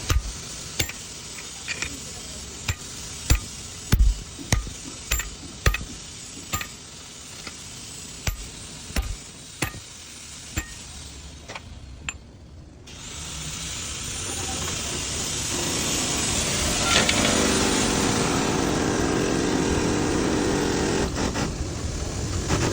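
Sharp metal-on-metal knocks at irregular intervals, about one a second, as wheel studs are worked into a truck wheel drum. About halfway through, a power tool starts and runs steadily, building up over a few seconds and then holding.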